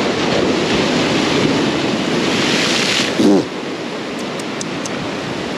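Ocean surf washing against a rocky shore: a wave surges loudly for about three seconds, then eases off to a lower wash. A brief voice sound comes just as the surge ends.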